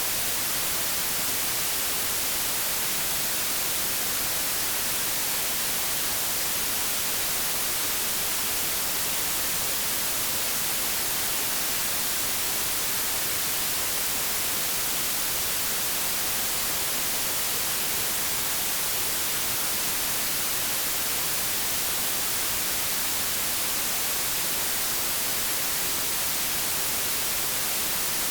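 Steady white noise static, like a TV or radio tuned to no station: an even hiss, strongest in the high frequencies, unchanging throughout.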